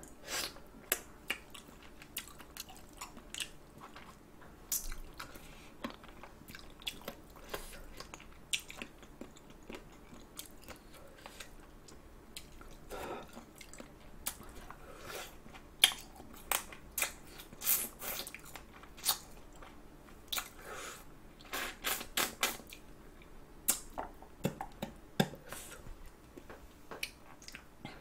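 A person chewing and biting spicy sauced chicken feet, picked up close by the microphone: wet mouth sounds broken by many irregular short, sharp clicks and smacks.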